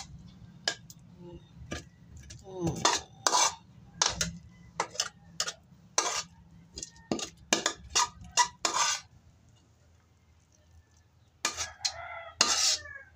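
A metal spatula scraping and knocking against a large aluminium wok as cooked pancit noodles are tossed and scooped out. The clatters come irregularly and pause for about two seconds before a few more scrapes near the end.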